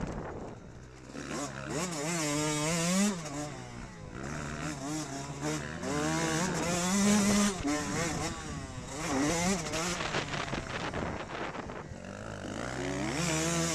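Motocross bike engine revving hard as it is ridden around a dirt track, its pitch climbing and dropping again and again as the rider works the throttle and shifts.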